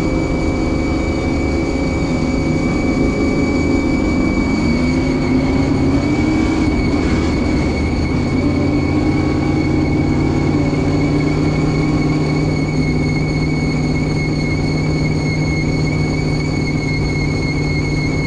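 Stadium Super Truck's engine running hard, heard from inside the cab, its pitch rising and falling a little in the first half before holding steady, with a steady high whine running over it.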